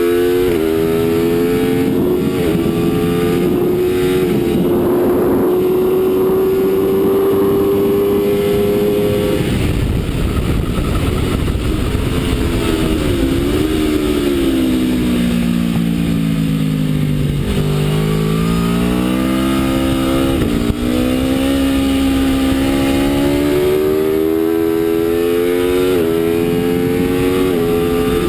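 Aprilia RSV4 V4 sportbike engine at high revs under hard acceleration. The pitch climbs with brief dips at each upshift, holds a long rising pull, then falls away as the revs drop, and climbs through the gears again. A loud low rushing noise sits under the engine from about ten seconds in.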